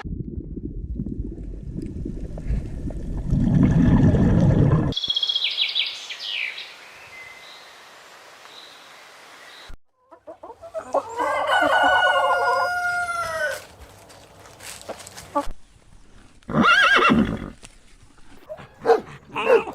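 A rooster crowing: one long cock-a-doodle-doo about halfway through, with shorter calls later. It is preceded by a loud, low, noisy sound lasting about five seconds.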